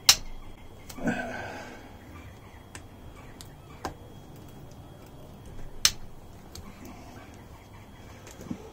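Separate metallic clicks and knocks of hand tools and loose bolts while the crankcase bolts of a Yamaha XJ650 engine are undone. A sharp click opens it, a duller knock follows about a second in, and single clicks come at about four, six and eight and a half seconds.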